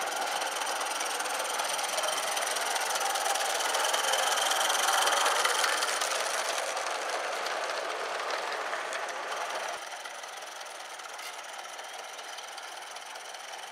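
Live-steam model locomotive, an Accucraft Lynton and Barnstaple 'Lew', running on garden railway track: a fast, busy chatter of steam exhaust and wheels on the rails, growing louder as it passes close by, then dropping suddenly to a fainter level about ten seconds in.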